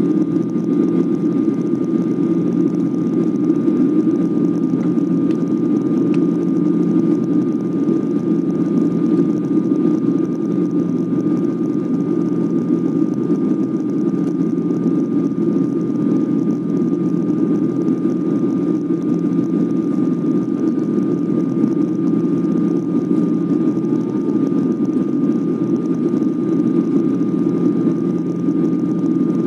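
Jet airliner cabin noise on the descent for landing: the steady low rush of the engines and airflow, with a faint steady high whine above it.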